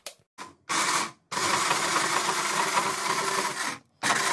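Electric hand blender with a chopper bowl running in pulses, grinding chillies and spices into a sambal paste. There is a short burst about a second in, a long run of about two and a half seconds, then another short burst near the end.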